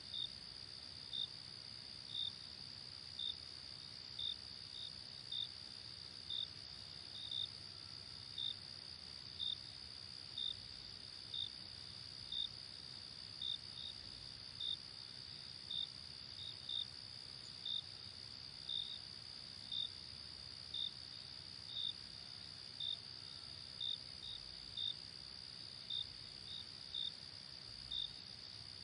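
Night insect chorus: a steady high trill, with a cricket chirping about once a second over it.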